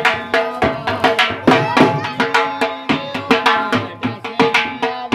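Dhol barrel drum beaten with a thin stick in a quick, steady rhythm, about four strokes a second.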